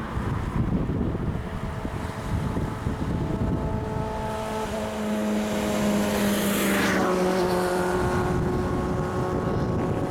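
Bass boat's outboard motor running past on the lake. Its steady engine note grows from about four seconds in and drops slightly in pitch as it passes around seven seconds, over a constant low buffeting of strong wind on the microphone.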